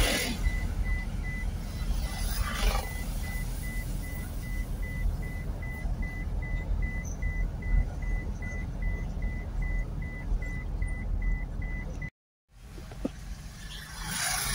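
A car driving slowly, heard from inside the cabin: low engine and road rumble, with a steady high electronic beep repeating about three times a second that stops near the end, and a couple of brief hissing whooshes. The audio cuts out to silence for a moment near the end.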